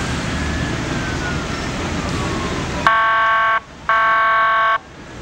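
Road noise with a faint siren falling in pitch, then about three seconds in two loud, steady horn blasts from an emergency vehicle, the second a little longer, a third of a second apart.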